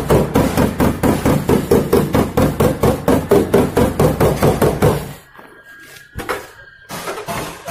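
A hammer tapping fast and evenly on a dented sheet-metal car body panel, about six or seven blows a second, knocking the dent back out. The tapping stops about five seconds in, and a few scattered knocks follow.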